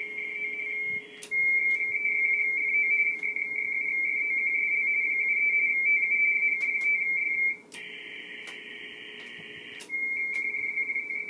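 RTTY (radioteletype) signals from an HF transceiver's speaker: two close high tones keyed rapidly back and forth in a steady warble. The tones drop out briefly about a second in, and for about two seconds near the end they give way to band hiss before resuming. A faint low hum runs underneath.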